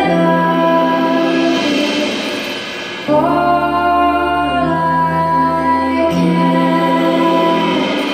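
Live performance of three women singing long held notes in close harmony over a sustained low keyboard chord. A new sung phrase comes in sharply about three seconds in.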